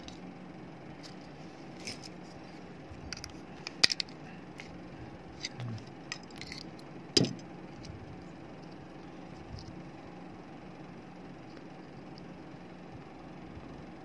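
Scattered small clicks and clacks of plastic and metal as a dismantled phone charger's plastic case and circuit board are handled and pulled apart, with two sharper knocks about four and seven seconds in. A steady faint hum runs underneath.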